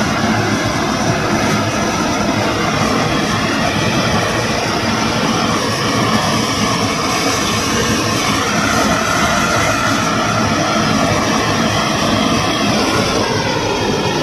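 Hose-fed gas blowtorch burning steadily as its flame singes the leftover hairs off a plucked chicken's skin.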